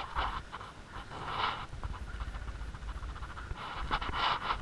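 A person breathing heavily close to the microphone, two long breaths about two and a half seconds apart.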